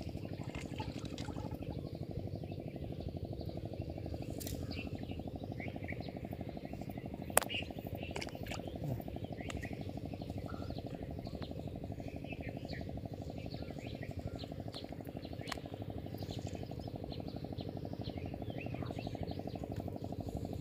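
A steady, low, rapidly pulsing drone with birds chirping now and then above it, and one sharp click about seven seconds in.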